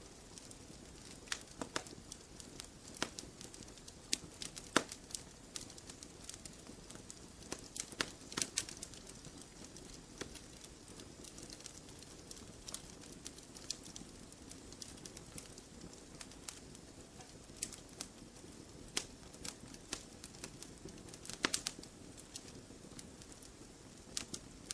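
Campfire crackling: irregular snaps and pops of burning wood over a steady low background, with small clusters of louder snaps about a third of the way in and again near the end.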